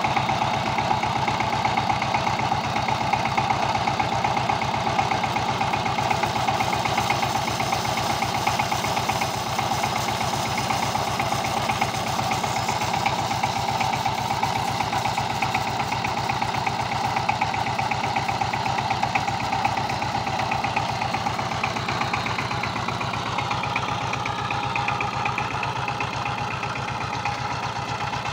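Single-cylinder diesel engine of a 12-horsepower two-wheel power tiller running steadily with an even, rapid firing beat. Its tone shifts slightly in the last few seconds as the tiller is driven through the mud.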